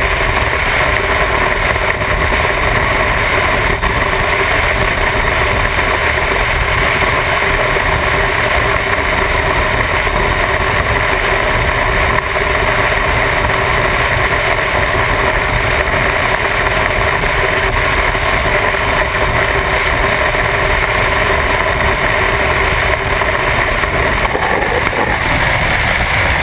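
Motorcycle running steadily at highway speed, its engine note under heavy wind noise on the microphone.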